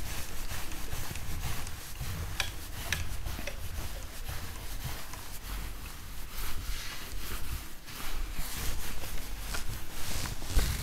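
Whiteboard eraser rubbing across a whiteboard in uneven wiping strokes, wiping the board clean.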